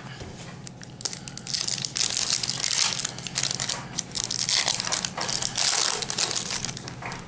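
Foil wrapper of a Pokémon trading card booster pack being torn open and crinkled by hand. It crackles in bouts from about a second in, loudest in two stretches.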